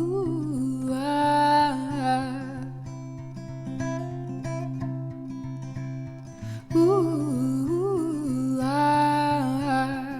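Song interlude: guitar playing steady plucked notes under a woman's wordless vocal oohs, sung in two phrases, one at the start and another near the end.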